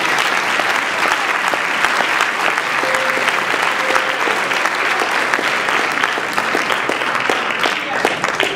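Audience applauding, a steady mass of claps that thins out near the end.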